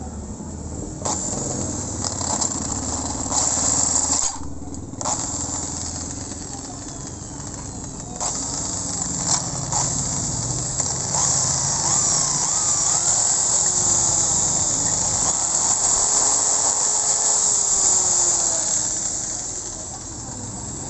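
Electric hand drill running with a 3/16-inch bit, boring into the stuck pilot air screw in an aluminium motorcycle carburetor so the hole can be re-threaded. It starts about a second in, stops briefly twice, runs steadily through the middle with a wavering squeal from the bit in the metal, and eases off near the end.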